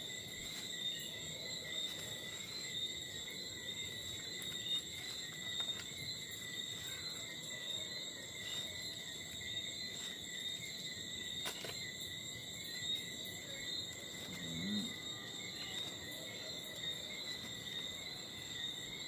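Night insects trilling steadily in a high, continuous chorus, with a few faint clicks.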